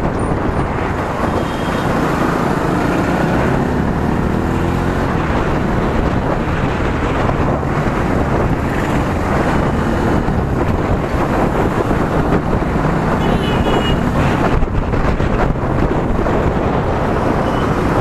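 Motorcycle engine running under way, buried in heavy wind rush on the microphone, the engine note climbing a few seconds in as the bike accelerates.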